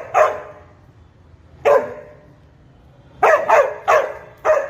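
Himalayan Shepherd dog barking: a single bark at the start, another a second and a half later, then a quick run of four barks near the end.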